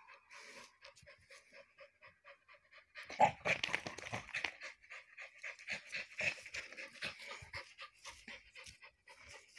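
A dog panting hard and fast, about four breaths a second, while it grips and tugs a rope hung from a tree branch. The panting grows louder about three seconds in.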